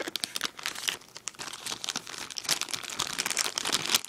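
Cardboard phone box and its packaging being handled and opened close to the microphone: a dense run of rustling and crinkling, loudest near the end.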